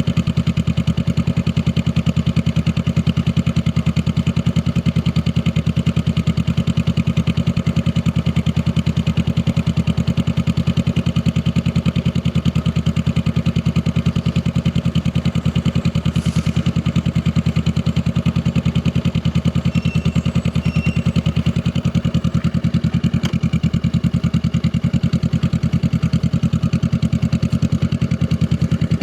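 Honda Rebel 500 motorcycle's parallel-twin engine idling steadily, with an even exhaust pulse and no revving.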